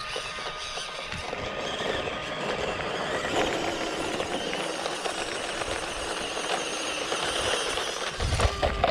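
Mini 1:18 scale RC crawler truck driving: its small electric motor and gearbox whir steadily as the tyres run over the ground. A louder low rumble comes in near the end.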